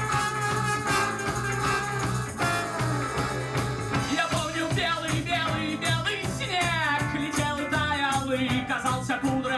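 A live band playing: electric guitar, trombone, accordion, acoustic guitar and drums, with a shaker. The first seconds hold steady notes, and from about four seconds in the melody slides and bends.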